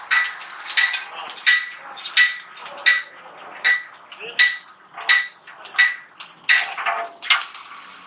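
Hammer blows on the sheet-steel tank of a gas water heater: about eleven sharp strikes in a steady rhythm, roughly two-thirds of a second apart, each with a short metallic ring.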